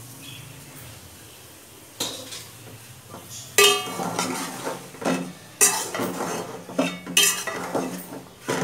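A steel ladle stirring chunks of mutton liver and lung in a stainless steel pot, scraping and clanking against the pot's sides. It is fairly quiet for the first two seconds, then gives repeated sharp, ringing metal-on-metal clanks from about halfway in.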